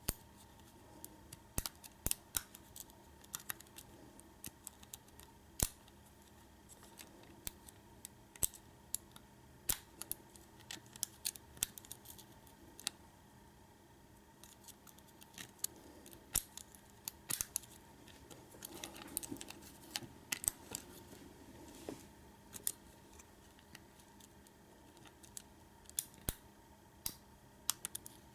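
Irregular small metallic clicks and taps of a lock pick and tension wrench working the pin tumblers of a Schlage deadbolt cylinder during single pin picking, with a short stretch of faint scraping about two-thirds of the way through.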